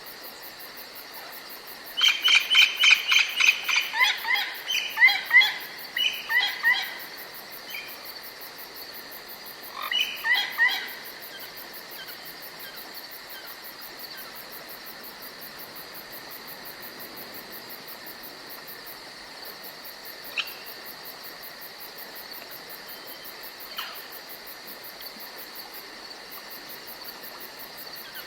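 Insects, likely crickets, trill steadily and evenly in a forest. About two seconds in, a songbird calls in fast runs of high chirps for several seconds, then gives another short burst around ten seconds in.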